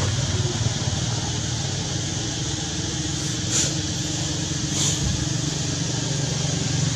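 A motor engine idling with a steady low hum, with two brief high-pitched chirps about three and a half and five seconds in.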